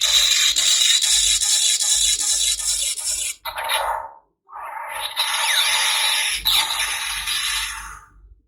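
Kamen Rider W Driver toy belt playing a rushing noise sound effect through its small, tinny speaker, with a steady high tone over the hiss. It breaks off briefly about three and a half seconds in, starts again and fades out near the end.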